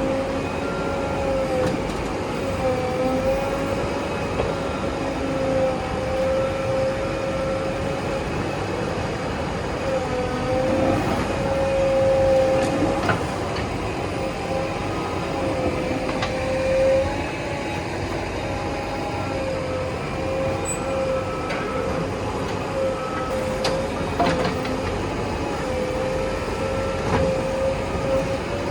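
Backhoe loader's diesel engine and hydraulics running under load, with a steady high whine that dips slightly now and then, over a rumble, and a few sharp knocks.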